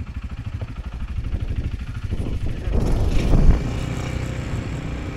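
Loncin XWolf 300 ATV engine running at low throttle with a steady pulsing note, then a brief louder burst of throttle about three seconds in before it settles back.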